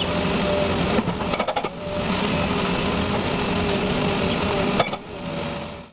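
Heavy machinery running with a fast, rhythmic hammering under a steady din, with a few sharp knocks about a second and a half in and again near the end. It fades and then cuts off abruptly.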